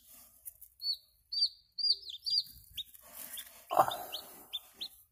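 A newly hatched chick peeping: a quick string of short, high peeps, each falling in pitch, with a brief rustling noise a little before four seconds in, the loudest sound.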